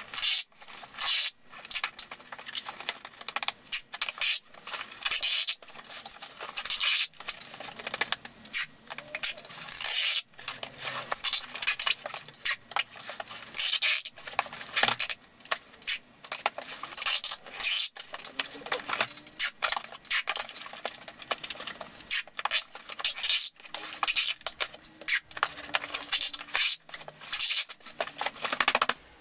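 Handheld packing-tape gun running tape onto a cardboard box: tape screeching off the roll in repeated strips, with the rattle of the dispenser and the box being handled.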